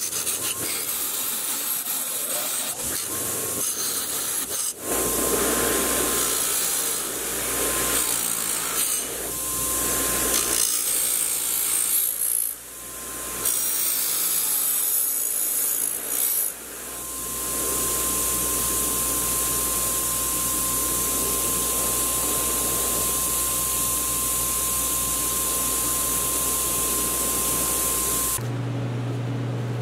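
Workshop tool noise: rubbing and scraping for the first few seconds, then a power tool with a steady high whine and a hiss, starting and stopping several times before it runs unbroken for about ten seconds. Near the end it cuts to a lower, steady motor hum.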